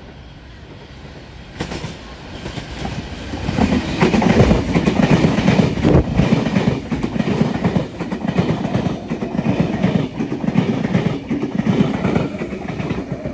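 V-set double-deck electric train passing close along the platform. The rumble builds from about two seconds in, then rapid wheel clatter over the rail joints and points continues as the carriages go by.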